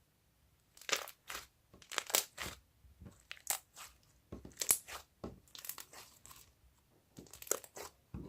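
Slime being squeezed and worked in the hands, giving irregular crackles and pops of trapped air, starting about a second in.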